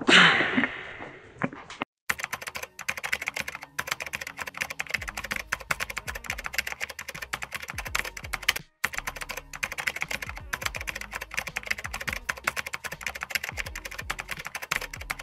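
Fast, continuous typing on a computer keyboard, dense clicking of keys with a few brief pauses. It opens with a short loud burst of noise in the first second or so.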